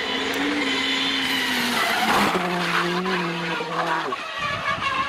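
Rally car at speed, its engine note falling as it brakes hard, then tyres skidding as it slides under braking: the start of a small off-road accident. The skid is loudest about two seconds in. The engine holds a lower note and then cuts out near four seconds.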